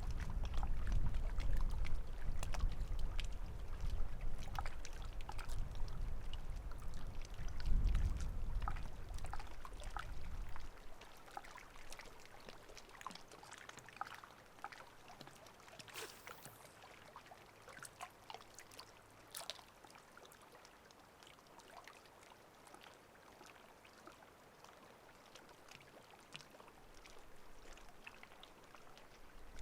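Low wind rumble on the microphone for about the first ten seconds, then a quieter stretch of faint water trickling and splashing with scattered small clicks at the lake's edge.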